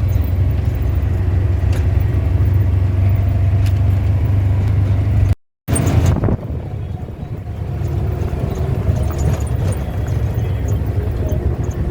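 Steady low rumble of a car driving, heard from inside the cabin. About five and a half seconds in, the sound cuts out briefly and comes back with a short loud rush of noise, then the rumble carries on a little weaker.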